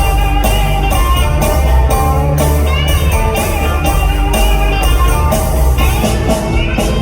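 Rock band playing live: electric guitars, bass and drum kit in an instrumental passage, drums keeping a steady beat of about two strikes a second.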